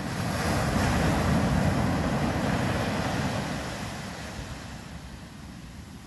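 Surf on a beach: a wave rushing in and washing up the sand, swelling quickly about a second in and then slowly fading away.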